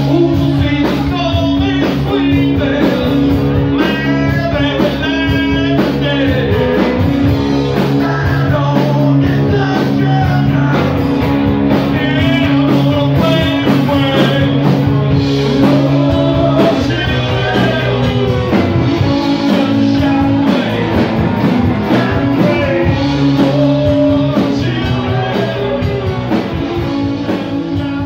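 Rock band music with a singer over guitar and steady low sustained notes; the music begins to fade out near the end.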